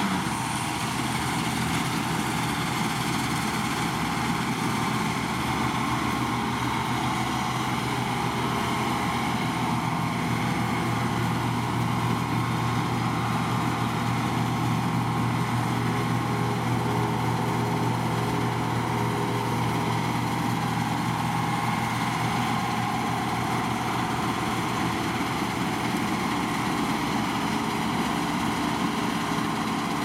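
New Holland Clayson 8070 combine harvester running steadily under load while cutting and threshing winter barley: its diesel engine drones evenly together with the whirr of the header and threshing machinery.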